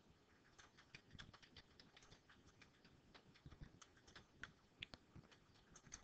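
Faint computer keyboard typing: irregular, quick keystrokes.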